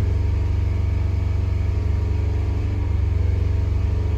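2018 Fiat 500's turbocharged four-cylinder engine running steadily with a persistent misfire that keeps the check-engine light flashing. The cause is damage from being run on diesel: fouled spark plugs and damaged valves leaving a cylinder without compression.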